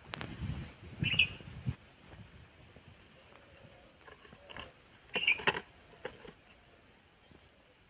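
Dry undergrowth rustling and crackling with soft thumps and scattered clicks, as someone pushes through brush on a bank while handling a bucket. There are two short high chirps, about a second in and just after five seconds. It goes quiet in the last couple of seconds.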